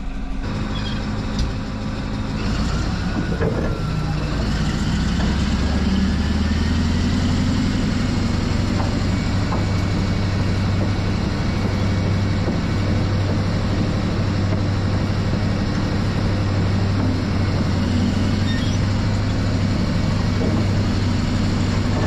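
Caterpillar D11 bulldozer's V8 diesel engine working as the dozer trims loose dirt with its blade. It picks up about three seconds in with a faint rising whine, then runs steadily.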